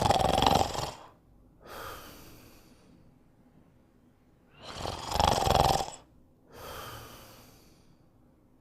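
A sleeping dog snoring, two breaths about four and a half seconds apart: each a loud snore followed by a quieter, softer breath.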